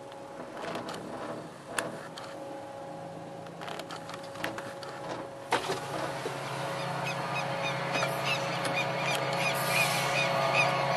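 Diesel freight locomotive running as it approaches and passes, its engine drone growing steadily louder. There is a sharp knock about halfway through, and quick high chirps or squeaks come through the second half.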